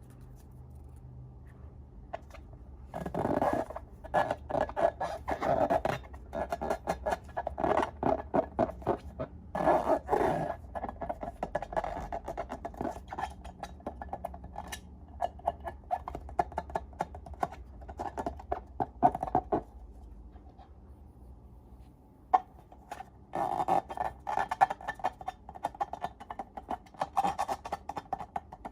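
Slime being worked by hand, giving dense, fast crackling and clicking squishes in bursts. It is quiet for the first few seconds and eases off for a couple of seconds before picking up again near the end.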